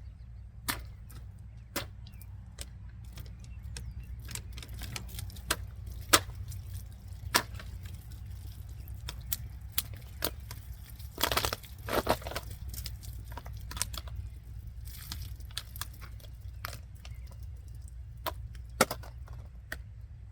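Cutting test with a small stainless-steel folding pocket knife: scattered sharp clicks, snaps and cracks, with a couple of short tearing, rasping cuts about eleven to twelve seconds in. The blade has never been sharpened and cuts only so-so. A steady low hum runs underneath.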